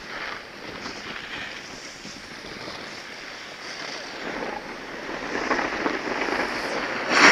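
Wind buffeting the microphone and the hiss and scrape of edges sliding over snow on a ski run, growing louder in the second half as the pace picks up.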